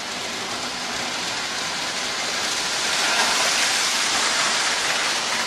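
Toy electric train running around its metal track: a steady, even noise that grows a little louder about halfway through.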